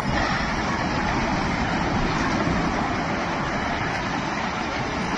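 A steady rushing roar with no separate crashes standing out.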